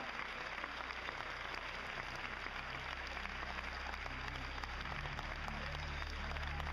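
Audience applauding in a theatre, a dense patter of many hands. A low droning note comes in beneath it about two seconds in.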